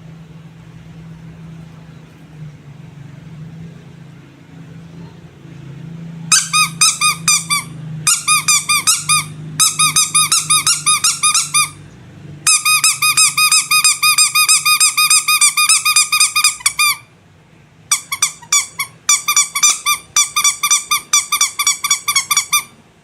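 Squeaky rubber animal toy squeezed over and over in quick runs of about six squeaks a second, each a short, shrill, pitched squeak, with short pauses between runs. The squeaking starts about six seconds in, after a low steady hum.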